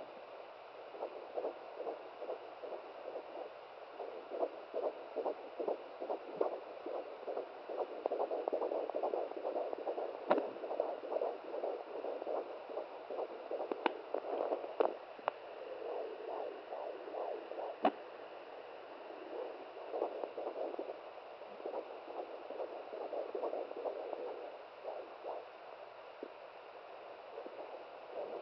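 Home fetal doppler picking up a 17-week fetal heartbeat: a fast, even pulse over a steady hiss, weaker in places, with a few sharp clicks partway through.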